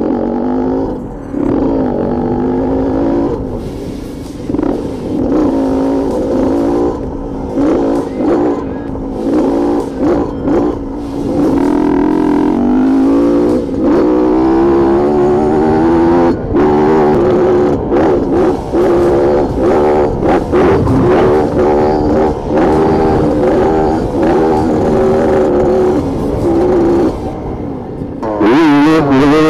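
Dirt bike engine ridden off-road, its pitch rising and falling over and over as the throttle opens and closes and gears change, with frequent short knocks throughout.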